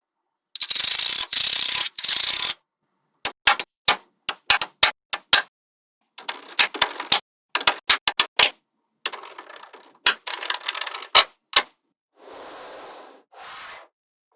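Small steel magnetic balls snapping together with sharp clicks, in quick runs, between stretches of the balls rattling and rubbing against each other.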